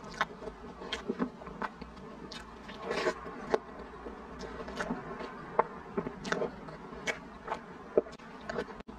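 Close-miked eating of soft chocolate cream cake from a spoon: wet lip smacks, sticky mouth clicks and a spoon scraping, several times a second, over a faint steady hum.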